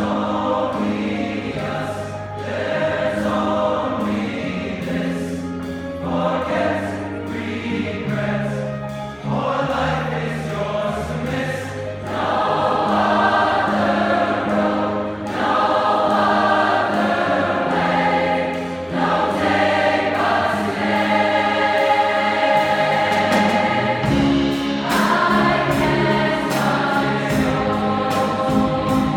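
Large choir singing in full harmony, accompanied by a jazz band with bass notes and drum hits under the voices. It swells louder about twelve seconds in.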